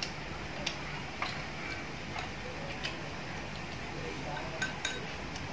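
Light, irregular clicks of wooden chopsticks tapping against porcelain rice bowls and plates while eating, about eight or nine over a few seconds, over a steady low hum.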